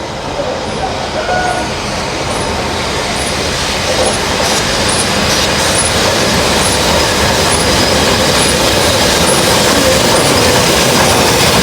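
Steam-hauled train behind A1 Peppercorn locomotive 60163 'Tornado' running in, a steady rolling rumble slowly growing louder, with faint regular wheel clicks about every half second.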